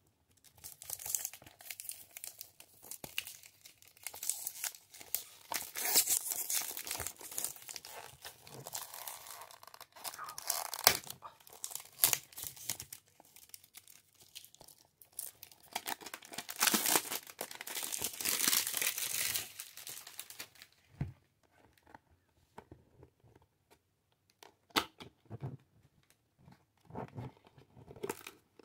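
Cellophane wrapping being torn and peeled off a perfume box, crackling and crinkling in stretches through the first twenty seconds or so. After that come softer scattered clicks of the cardboard box being handled and opened.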